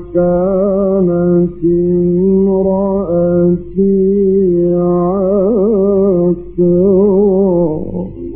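A male reciter chants the Quran in the slow, melodic mujawwad style, holding long ornamented notes with vibrato. Three short breath pauses break the chant. This is an old live recording with a steady low hum under the voice.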